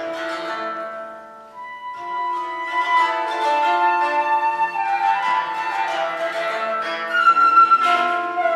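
A flute playing a held melody over a plucked koto. The sound thins to a brief hush about a second and a half in, then both instruments come back in more fully.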